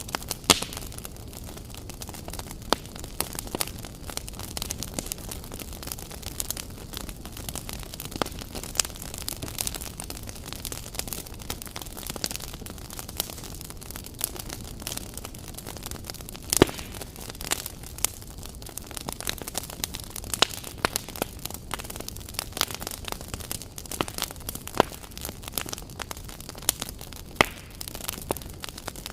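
Wood fire crackling: frequent sharp pops and snaps, a few of them louder, over a steady low rush of the flames.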